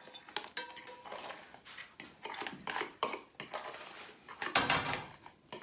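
Metal spoon scraping egg and cheese mixture out of a plastic bowl into a stainless steel pot: irregular scrapes and clinks, with a longer, louder scrape about four and a half seconds in.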